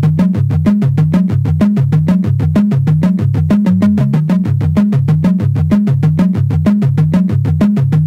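Electronic background music: a synthesizer bass line over a fast, steady beat.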